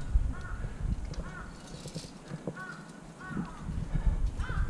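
A bird calling over and over, short arching calls about twice a second, over a low rumble on the microphone.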